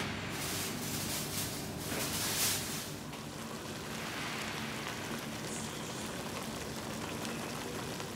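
A pot of rice-noodle broth (pancit bihon) boiling hard, a steady bubbling hiss that is louder for the first few seconds. The broth is being boiled down until the noodles soak it up.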